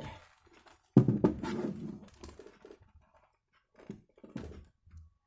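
Handling noise from a laptop being powered on for testing: a sudden knock about a second in that fades off, then a few fainter clicks near the end.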